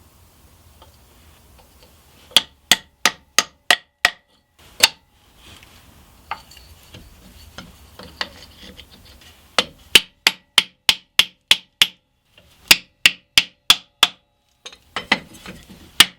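Hammer tapping in short runs of sharp taps, about three a second, with pauses between the runs.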